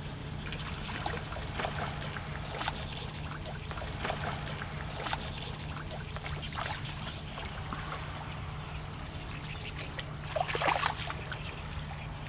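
Water splashing and trickling as a hooked crucian carp is played near the surface, with scattered small splashes and a louder splash about ten and a half seconds in, over a steady low hum.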